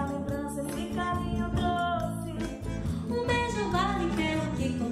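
A forró band plays an instrumental passage between sung verses, with a wavering lead melody line over bass and percussion.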